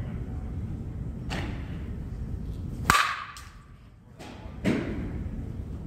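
Softball bat striking a tossed ball just under three seconds in: one sharp crack that rings briefly. A duller thud follows about two seconds later.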